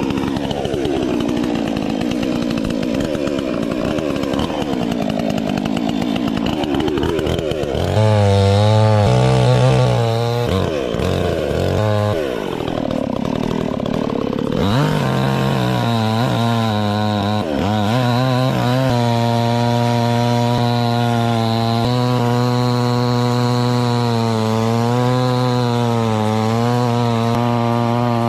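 Cheap Chinese two-stroke chainsaw running loudly, its revs swinging up and down for the first half, with a short drop to a steady idle about eight seconds in. From about halfway it settles to a steady idle, the pitch wavering slightly.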